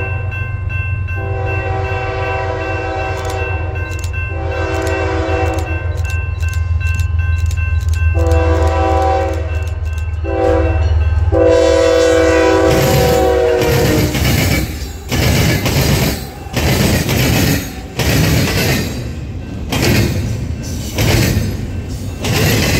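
Diesel freight locomotives sound a multi-chime air horn in a series of blasts over a low engine rumble as they approach. The last blast is held and drops in pitch as the lead unit passes about halfway through. Double-stack container cars then roll by with a rhythmic clatter of wheels over the rails.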